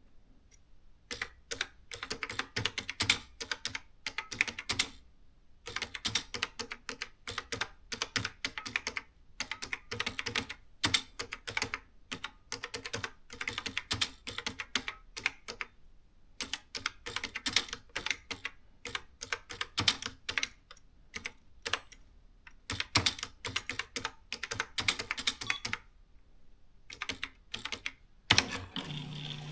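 Keys of a Canon S-60 electronic typewriter being typed in quick runs of clicks, with short pauses between runs. Near the end a loud click is followed by a steady mechanical whir.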